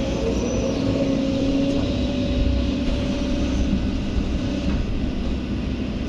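Heavy diesel machinery running steadily, most likely the Kobelco SK excavator working, with a low engine rumble and a steady whine on top.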